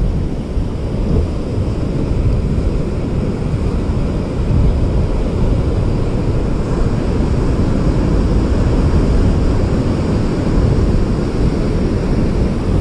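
Steady wind rumbling on the microphone over the wash of sea surf on the rocks, growing a little louder about two seconds in.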